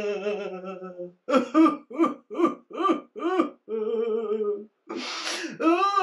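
A high cartoonish puppet voice making wordless sing-song noises: strings of short arching syllables, about three a second, broken by two held notes, with a short breathy hiss about five seconds in.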